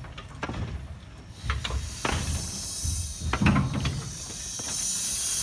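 Steam hissing from a 1912 Baldwin steam tank locomotive: the hiss builds over the first few seconds and holds loud and steady from about four and a half seconds in. A few sharp metallic knocks sound in the first half.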